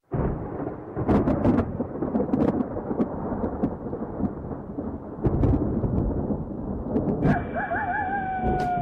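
Thunderstorm sounds: a steady hiss of rain with rumbles and sharp cracks of thunder. A little past seven seconds a wavering call comes in and settles into a long, slowly falling tone.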